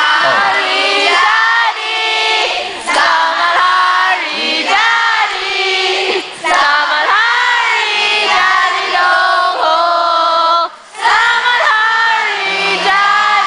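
An audience singing together, many voices in unison, in sung phrases with short breaks between them.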